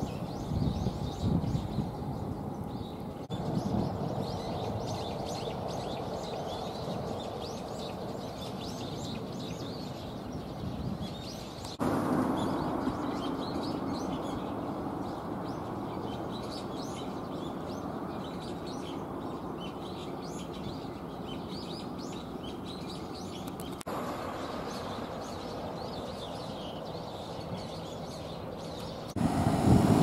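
Small birds chirping again and again over a steady background hum of street traffic. The hum shifts abruptly a few times, and a louder rushing noise comes in near the end.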